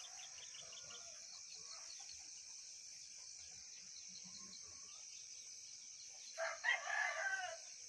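A rooster crows once near the end, a call of about a second, over a steady high-pitched hiss in the background.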